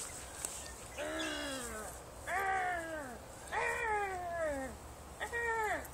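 Squeaker inside a plush dog toy giving four long squeaks, about a second each and each falling in pitch, as the toy is squeezed and tugged.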